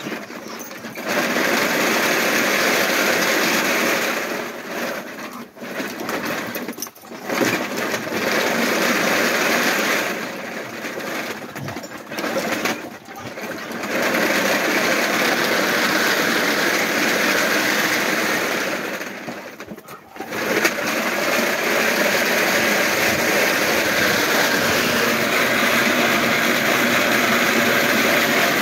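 A dog-powered carpet mill running: the belt and rollers give a steady whirr as a dog runs on it, with several short lulls where the whirr drops away and picks up again.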